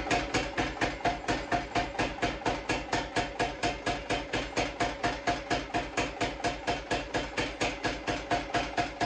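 Mechanical power hammer striking a glowing hot Damascus steel billet in a steady, even run of blows, about five a second, each with a ringing clang. The billet is being drawn out to lengthen it after forge welding.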